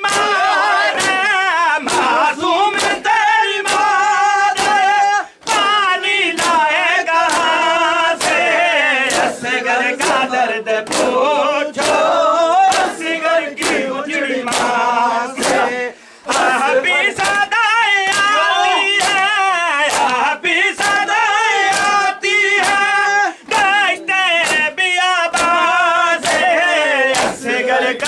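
Men chanting an Urdu noha (Muharram lament) in chorus, over a steady rhythm of open-hand slaps on bare chests (matam) beating a little more than once a second.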